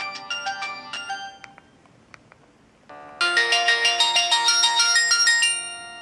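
Samsung GT-E1150 flip phone playing preview clips of its built-in polyphonic ringtones. One melody plays and dies away about a second and a half in. After a pause with a couple of faint clicks, a louder, busier melody starts about three seconds in and stops about two and a half seconds later, its last notes ringing on and fading.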